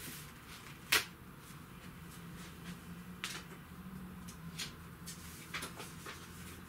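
Cardboard and board packaging being handled, with one sharp knock about a second in, then a few softer taps and light rustling.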